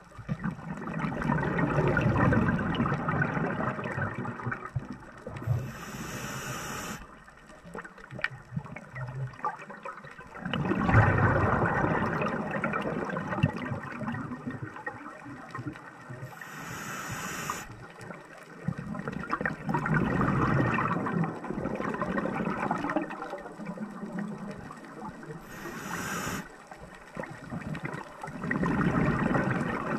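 Scuba diver's regulator breathing, heard underwater: long rushes of exhaled bubbles lasting a few seconds alternate with short, high hissing inhales, one breath roughly every ten seconds, three inhales in all.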